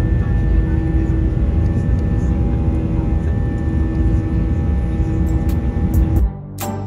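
Loud, steady roar of a jet airliner's engines heard from inside the cabin during the takeoff climb, with a few steady hums in it. Near the end it cuts off and music starts.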